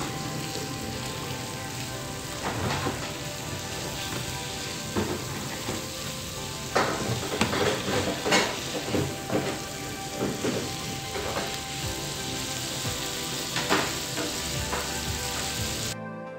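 Chicken strips sizzling in oil and butter in a nonstick frying pan, a steady hiss, while a silicone spatula stirs and turns them, scraping and knocking against the pan now and then.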